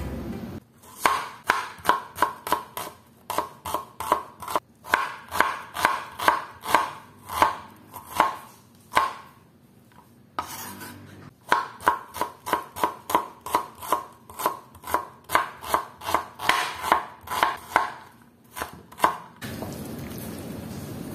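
Kitchen knife chopping on a cutting board: a steady run of sharp strikes, about two to three a second, with a pause of a second or two midway. Food is being cut into small pieces.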